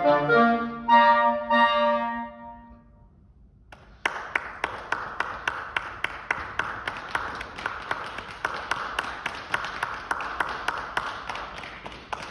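Three clarinets end a piece on a final chord that rings out and fades into the hall's reverberation. After a moment of quiet, an audience starts applauding about four seconds in and keeps clapping.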